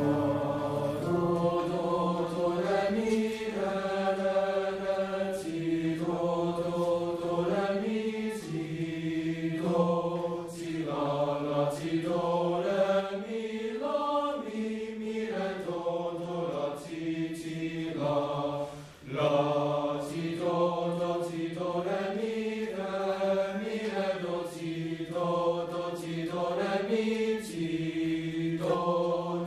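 Boys' choir singing in parts, the voices entering together and holding slow, sustained chords that shift every second or two, with a short break about 19 seconds in.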